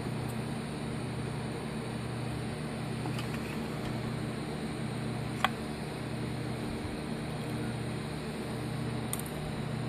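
Steady hum of the 3D printer's small extruder cooling fan, with one sharp click about halfway through and a few fainter ticks as a metal Allen tool is worked against the printed ABS part on the glass bed.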